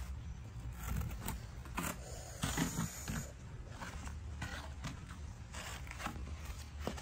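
Rustling and light scraping of clothing as a baby monkey climbs about on a person's lap, with scattered small clicks and a longer rustle about two and a half seconds in, over a low steady hum.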